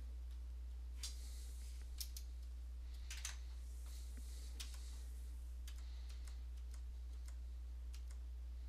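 Scattered clicks of computer keyboard keys, a few at a time rather than a fast typing run, over a steady low electrical hum.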